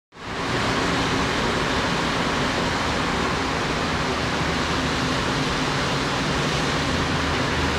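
A steady, even rush of background noise with a low hum beneath, fading in at the very start.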